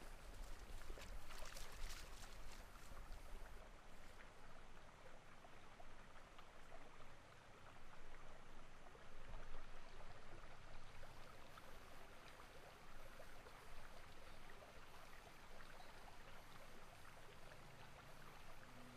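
Faint, steady rushing noise, with scattered clicks and a low rumble in the first few seconds.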